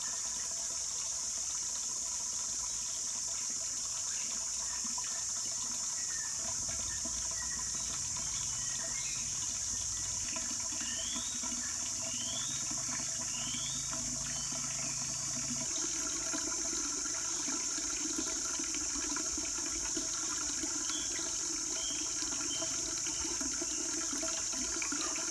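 A steady stream of water pouring and splashing into a large ceramic jar, with a few short chirps from a bird midway; the sound shifts about two-thirds of the way through as the stream changes.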